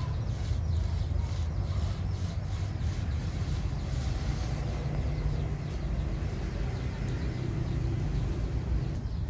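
A metal strip scraping around wet cement on a stove mould, in light strokes about twice a second that fade after the first few seconds. A steady low rumble sits underneath.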